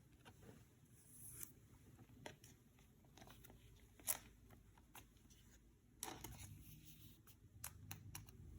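Faint handling of Yu-Gi-Oh! trading cards and their packaging: light rustles and small sharp clicks, the sharpest about four seconds in, with a quick run of clicks near the end.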